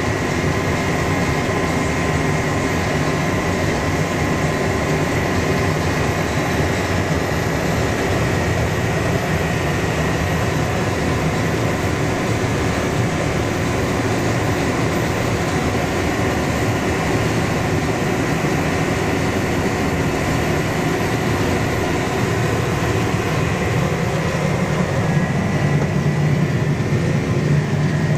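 John Deere 9230 four-wheel-drive tractor running steadily under load, heard from inside the cab as it pulls a Flexi-Coil air drill: a continuous engine and drivetrain drone with a faint steady whine over it. The drone grows a little louder and deeper near the end.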